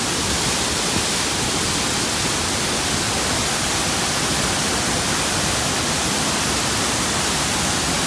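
A large waterfall pouring into a rocky river pool, a steady, even rush of falling water.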